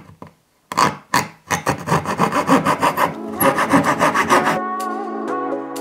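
Coping saw cutting through a timber skirting board moulding, with quick, even back-and-forth strokes that start about a second in and stop shortly before the end. Background music fades in under the sawing and carries on after it.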